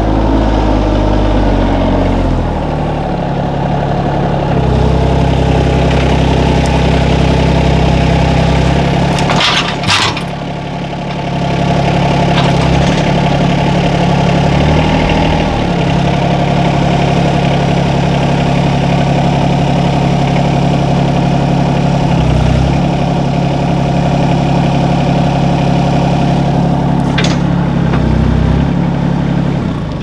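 Compact tractor's diesel engine running under load as it carries a grapple full of logs, its pitch shifting a little several times. Two short sharp clanks, about ten seconds in and near the end, and the engine dies away right at the end.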